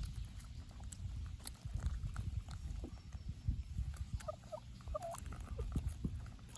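Chickens making short, soft clucking calls, a cluster of them about four to five seconds in, over a low rumble and scattered small clicks.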